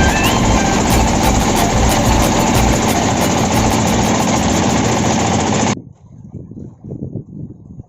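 Boat engine running loud and steady with a low throb, cutting off suddenly about six seconds in; faint low rumbling follows.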